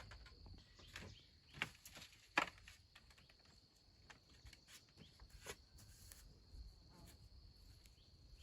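Faint steady high-pitched drone of insects, with a few sharp clicks or snaps, the loudest about two and a half seconds in.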